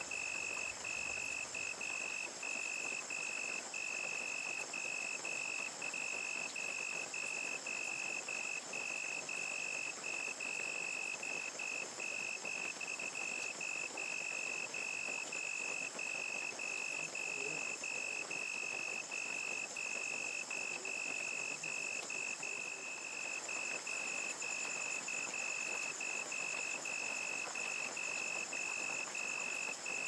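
Crickets chirping in a steady pulsing rhythm of about two chirps a second, with a continuous higher insect trill above them, over the even hiss of steady rain.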